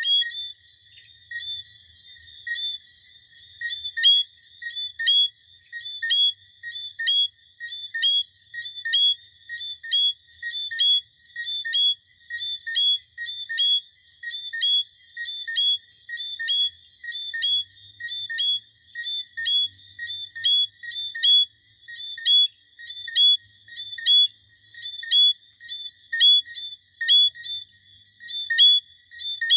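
Chorus of small frogs calling: a sharp, high peep repeated roughly once a second over a steady high background trill.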